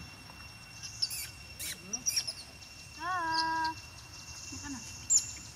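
A macaque gives one drawn-out coo about three seconds in, rising at first and then held level. Scattered sharp clicks come before it, and one sharp click near the end is the loudest sound; a steady high insect drone runs underneath.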